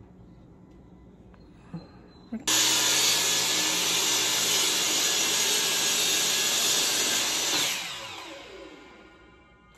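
Electric compound miter saw started with a sudden whine, running for about five seconds as it cuts through a wooden board, then the blade spinning down with a falling whine after the trigger is released.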